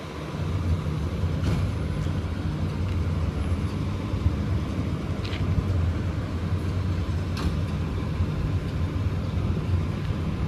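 Diesel engine of a fire department aerial ladder truck running steadily at low speed, a little louder from about half a second in, with a few short sharp ticks over it.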